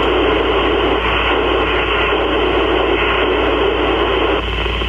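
Steady FM receiver static (open-squelch hiss) from an Icom IC-705 tuned to the PO-101 satellite's 2 m FM downlink, with a low hum underneath and no voice on the channel: the satellite signal has faded into noise.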